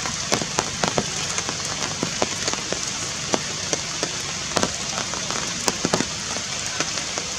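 Forest ambience: a steady hiss with scattered sharp ticks and pops, several a second at irregular spacing.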